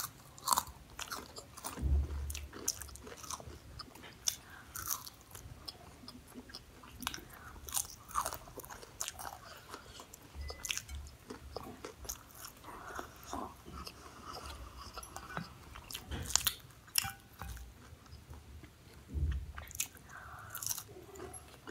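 Crisp fried samosa pastry being bitten and chewed close to the microphone: continual small crunches and chewing, with a few louder crunching bites.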